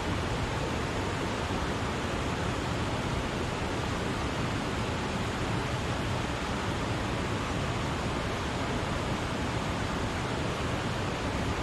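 Wachirathan waterfall pouring: a constant, even rush of falling water with no change in level.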